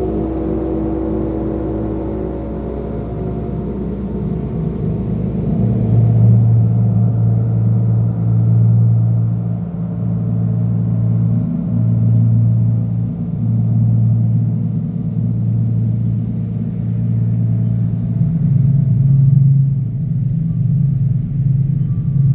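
Chapel Temple Chimes ringing. Higher tones fade over the first few seconds, then a deep chime tone swells and hums with a slow, even wobble, shifting to a slightly higher note near the end.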